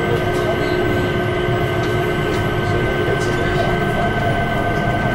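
Changi Airport Skytrain, a rubber-tyred automated people mover, running along its guideway, heard from inside the cabin: a steady rumble with a constant high tone over it.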